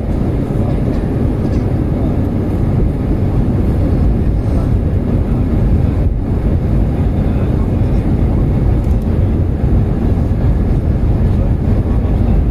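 Steady low cabin noise inside an Airbus A320neo on its landing approach: CFM LEAP-1A turbofan and airflow noise heard through the cabin wall beside the wing.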